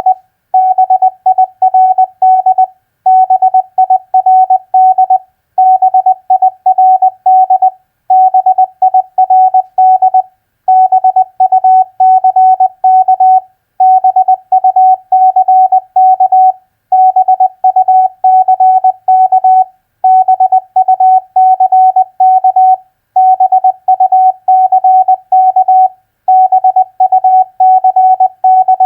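Morse code at 20 words per minute: a single steady tone keyed in rapid dots and dashes spelling common four-letter words, with a short pause between words, about ten words in all.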